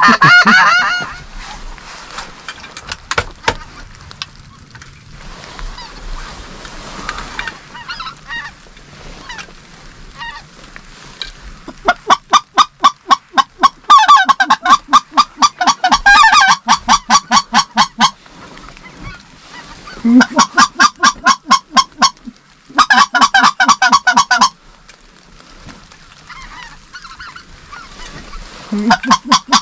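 Hand-blown goose call worked close by in loud bursts of rapid, quickly repeated honking notes that jump between a low and a high pitch, calling to passing geese. Between the bursts, fainter goose honking.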